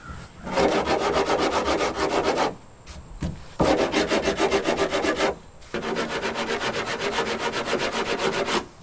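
Sanding block rasping back and forth over the hardened epoxy and fiberglass repair on a slalom boat's stern, in three bouts of quick, even strokes with short pauses between. It is shaping the repair to take off its sharp edges.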